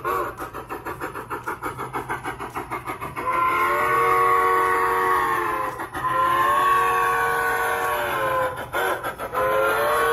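Onboard sound system of a G-scale narrow-gauge model steam locomotive: steady rhythmic chuffing, then about three seconds in a multi-tone steam whistle that blows two long blasts, a couple of short toots, and a long blast again near the end.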